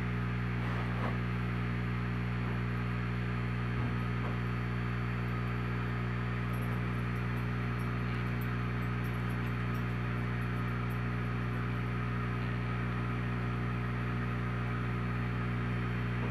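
Aquarium equipment humming steadily, a low electrical drone. A faint click about four seconds in.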